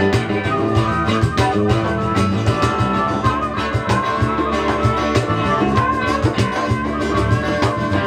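Live band music: electric guitar, bass and drums, with a harmonica playing long, wavering notes over them.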